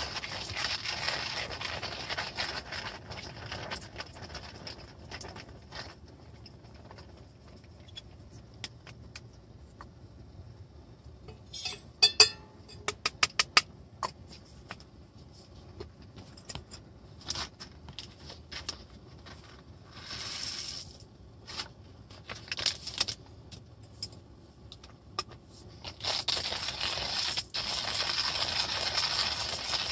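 Camp coffee gear handled by hand: scraping and rubbing of small metal items, with a quick run of sharp clinks about twelve seconds in. A steady hiss fades out over the first few seconds and comes back near the end.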